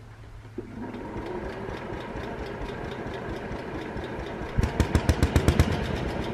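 A 1970 Sears SS14 garden tractor's engine runs. It revs up suddenly about half a second in, then runs steadily, with a run of loud, rapid putts at about eight a second for about a second near the end.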